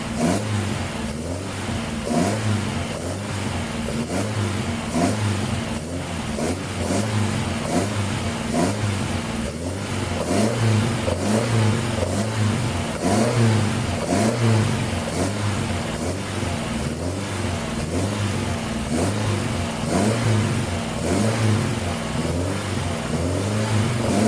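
1985 Mitsubishi Sigma's Astron 2000 four-cylinder engine running, its revs rising and falling about once a second, just after its firing order was redone and the distributor turned 180 degrees.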